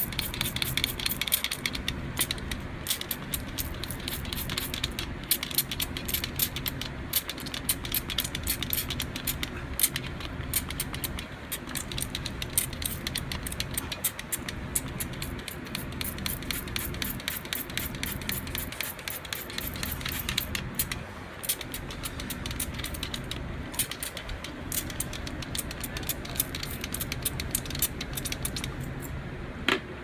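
Leak-detection solution squirted from a spray bottle onto a refrigeration line's copper and brass fittings during a leak test of the pressurised system. Dense crackling and rattling go on throughout, over a steady low hum.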